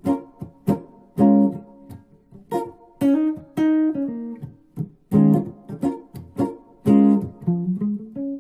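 Guitar playing a jazz phrase of plucked chords and single notes, with several strong chord hits spread across the phrase. It is an 'outside' line using the tension and release of altered scales.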